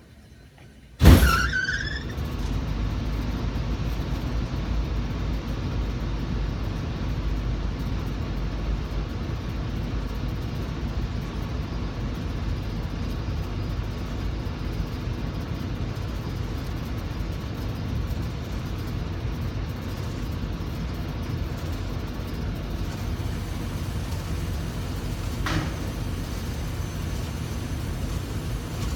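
Rheem air-conditioner blower unit starting up with one sudden loud bang about a second in, then running with a steady low rumble. A single faint click comes near the end.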